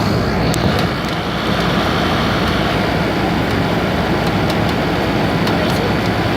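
Heavy rain falling steadily: a loud, even hiss with a few sharp ticks scattered through it.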